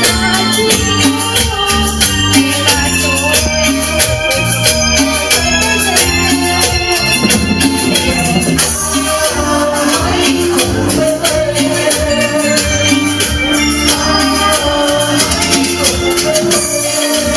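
Latin band music with electronic keyboard and bass over a steady maraca-style shaker rhythm.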